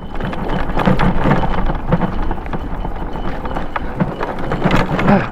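Tyres of a Daymak electric bike crunching and knocking over loose rock and gravel while climbing a stony slope, an irregular run of cracks and bumps over a steady low rumble.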